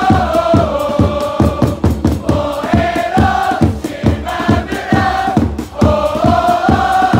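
Football supporters' crowd singing a player's chant in unison close by, the melody held in long stepped notes in repeating phrases of about three seconds. Under it runs a steady beat of about three strokes a second.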